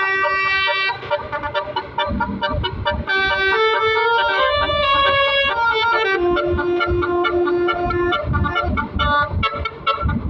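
Bus basuri (telolet) multi-tone horn playing a melody: held organ-like notes stepping from pitch to pitch, with one long steady note from about six to eight seconds in. A low rumble comes and goes underneath.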